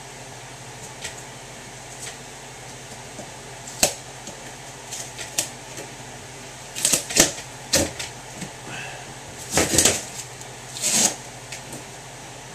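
A cardboard box and its packaging being worked open by hand: scattered clicks, taps and short rustles, coming thicker in the second half, over a steady low hum.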